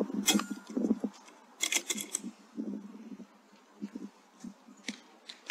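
A .22 Airmaks Krait L PCP air rifle firing once, a short sharp crack about a third of a second in, followed by a quick cluster of clicks about a second and a half later, with a few lighter ticks near the end.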